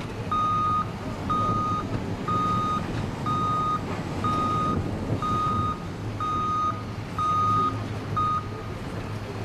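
Heavy construction machinery's warning beeper sounding a single steady tone about once a second, about nine beeps, over the steady hum of a diesel engine; the beeping stops about a second before the end.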